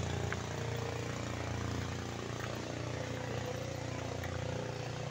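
Motorboat engines running steadily on the river, a continuous even drone.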